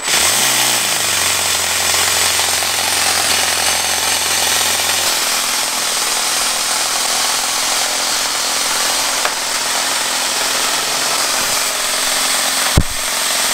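Toyan four-stroke RC model engine on a Nerf flywheel blaster starting and running steadily at a fast, loud buzz, with one sharp click near the end.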